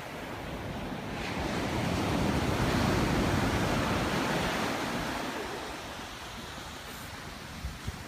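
Ocean surf breaking on a sandy beach: a wave rises to a loud rush about two to three seconds in, then washes out and fades, with some wind on the microphone.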